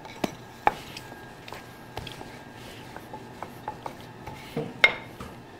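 Wooden rolling pin rolling dough flat on a floured wooden board, with scattered light taps and knocks of the pin and dough against the board, a few of them sharper.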